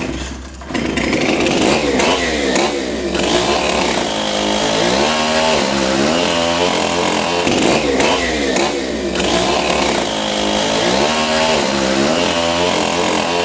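Chainsaw engine starting up about a second in and running hard, its pitch rising and falling again and again as it revs.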